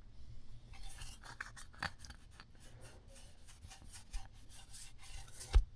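Quiet scratching and rubbing handling noises with scattered small clicks, and one sharper knock near the end.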